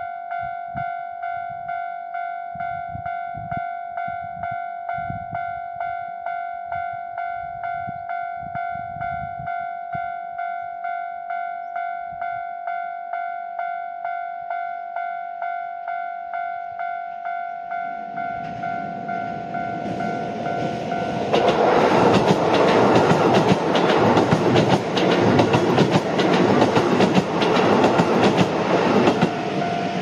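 Japanese level-crossing warning bell ringing a steady, repeating ding. About 18 seconds in, a Keisei Main Line train comes up and passes over the crossing, its wheels clattering on the rails. It drowns out the bell for about eight seconds, and the bell is heard again near the end.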